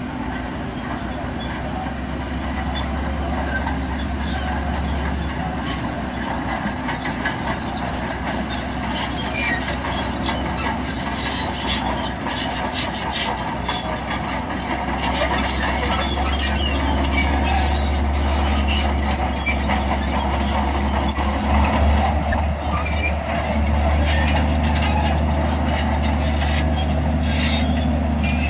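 Diesel engine of tracked earthmoving machinery running with a steady low drone, growing louder about halfway through and again near the end. A continual run of high squeaks and clicks from the steel tracks sounds over it.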